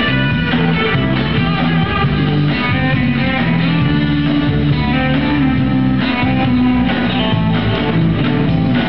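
A live band playing amplified guitars: an electric guitar over a bass guitar line, loud and steady.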